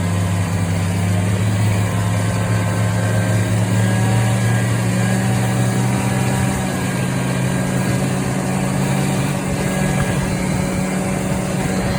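Fan-cooled two-stroke engine of an Arctic Cat Puma snowmobile running steadily while the sled travels along.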